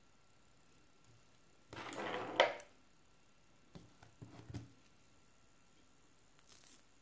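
Screw lid of a small plastic gel jar being twisted off: a short scraping rustle about two seconds in that ends in a sharp click, then a few light taps and clicks from handling the jar.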